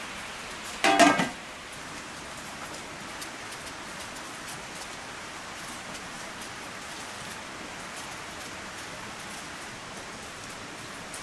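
Steady rain falling, an even hiss, with one short loud sound about a second in.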